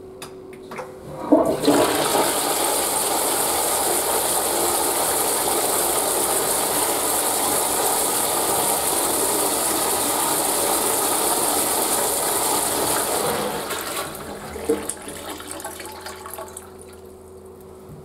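Western-style toilet flushing. A steady rush of water starts about a second in and lasts about twelve seconds, then fades into gurgles and trickling as the bowl settles.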